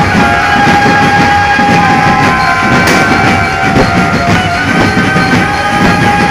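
Loud dhumal band music blasting from truck-mounted sound systems: a long held high note over a dense low beat, with the note breaking off briefly about two-thirds of the way through.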